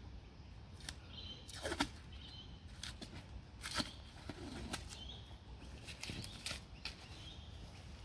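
Faint, scattered sharp clicks and cracks, roughly one a second, as a stingless bee hive box held together with sticky tape is handled and opened.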